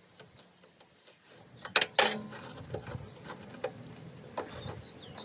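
Mechanical handling noise from a dumper's joystick control being twisted apart by hand: two sharp clicks about two seconds in, then scattered lighter clicks and rattles as the parts are turned.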